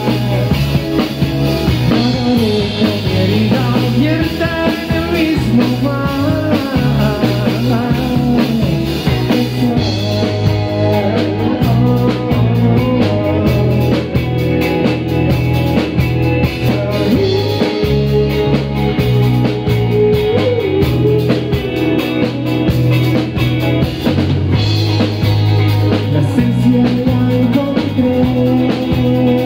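Live rock band playing: electric guitar, electric bass and drum kit together, holding a steady full loudness.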